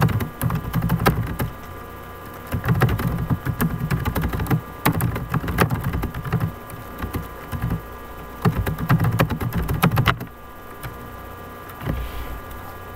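Typing on a computer keyboard: bursts of rapid clicks mixed with dull knocks on the desk, stopping about ten seconds in.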